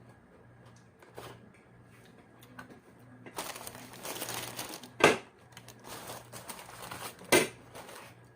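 Crinkling of take-out food packaging for about a second and a half, followed by two sharp knocks about two seconds apart.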